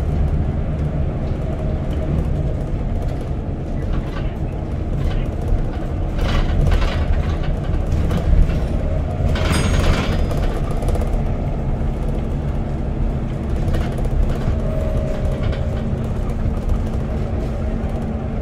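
Steady low engine and road rumble heard from inside a moving vehicle, with a brief hiss about halfway through.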